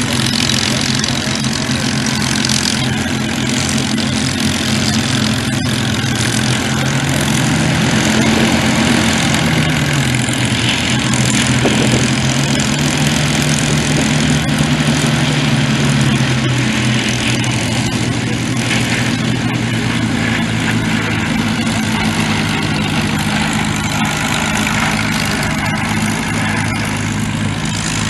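Spitfire V12 piston engines running at taxi, propellers turning, with a steady uneven engine note that rises and falls in pitch for several seconds in the middle.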